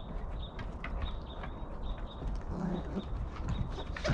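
Paws knocking and scrabbling on a wooden log deck as a wolf, a large dog and a puppy scuffle, giving scattered short clicks and knocks.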